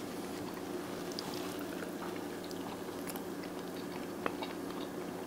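A person chewing a bite of deep-fried burger, with small mouth clicks, over a steady low hum.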